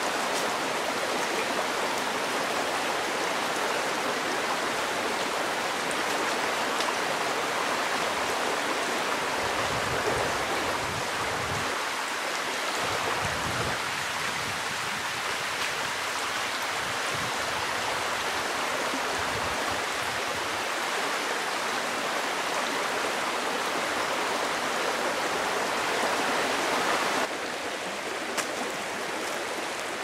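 Shallow mountain stream rushing steadily over rocks and a small cascade. A few low bumps come in the middle, and the water sound drops a little a few seconds before the end.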